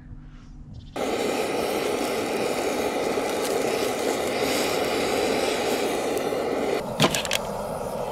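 A steady, loud rushing noise begins suddenly about a second in, over charcoal burning in a grill. Near the end it drops away, and a few crisp clicks follow as a knife cuts an onion on a plastic plate.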